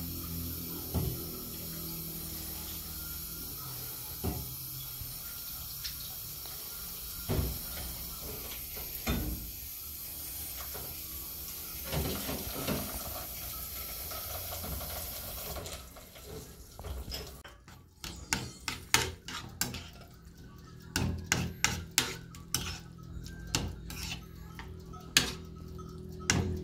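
Dishes and kitchen utensils knocking and clinking. For the first half a steady low hum runs under a few separate knocks; about halfway through the hum stops and a quick run of sharp clinks and knocks follows.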